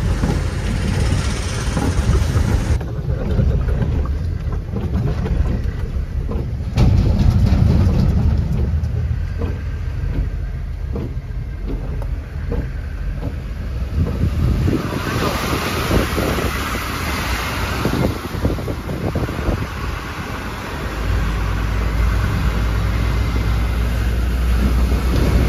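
Inside a truck cab while driving on a wet, rough road: a steady low engine and road rumble with frequent knocks and rattles as the truck jolts over the bumps. About halfway through, a rushing hiss of tyres on the wet road rises for several seconds.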